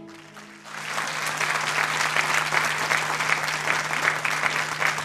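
Studio audience applauding, the clapping swelling in under a second as the last held note of the song dies away, then going on steadily.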